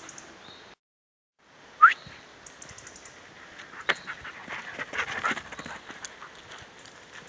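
Footsteps crunching and rustling on a dry forest floor of needles and twigs as a dog and the person filming run along a woodland path, with many quick crackles and steps. About two seconds in comes one short, sharp rising chirp, the loudest sound, and just before it the sound drops out for about half a second.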